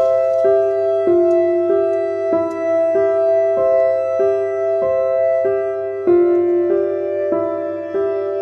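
Background music: a slow keyboard melody, one evenly paced note after another, a new note roughly every half second.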